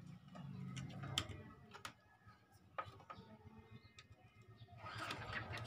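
A few faint, sharp clicks and light rattles from hands handling the wiring and connectors of an opened CRT television chassis, over a low steady hum.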